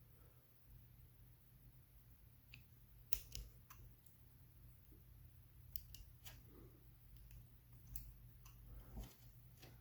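Faint, scattered clicks and snips from trimming excess tape off the wrapped device, over a low steady hum.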